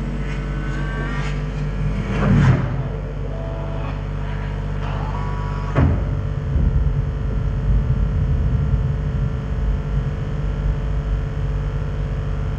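Experimental electronic performance music: a steady low rumbling drone under held tones, with short stepped high tones and a swell about two seconds in, then a sudden hit near the middle that gives way to a rougher, crackling rumble.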